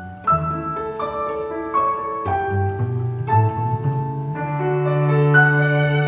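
Slow classical piano music, a new note or chord sounding about once a second over held low notes.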